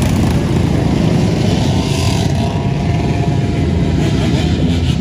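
A pack of dirt bikes and ATVs riding past close by, their engines running together as loud, steady engine noise.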